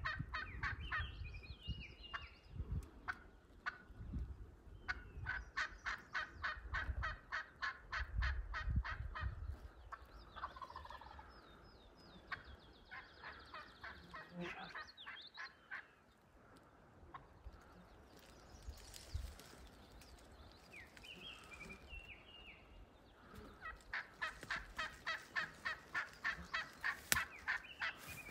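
Turkey yelping: long runs of evenly spaced yelps, about four or five a second, starting about five seconds in and again near the end, with a few scattered calls in the quieter stretch between. Low rumbling on the microphone during the first half.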